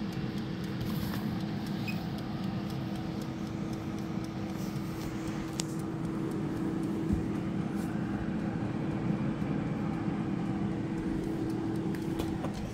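Simplus air fryer running, its fan giving a steady hum with one low tone held throughout. A few faint clicks sound over it.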